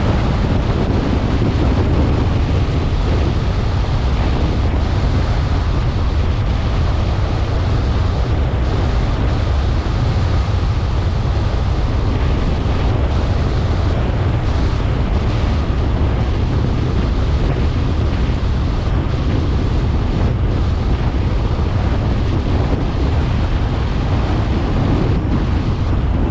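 Steady wind buffeting on the microphone over the low rumble of a car driving on the road.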